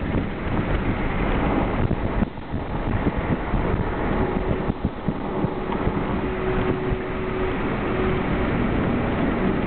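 Car driving at road speed: a steady rush of wind and road noise, with wind buffeting the microphone. The noise dips briefly about two seconds in, and a faint steady hum comes in about four seconds in.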